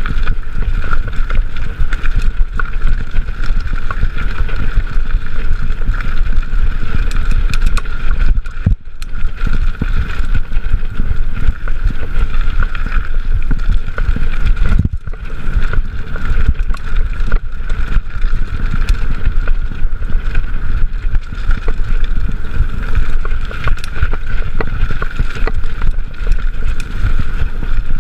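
Mountain bike ridden fast along a dirt singletrack, heard from a chest-mounted camera: heavy wind buffeting on the microphone over the rumble and rattle of the bike over the bumpy path, with a steady high hum.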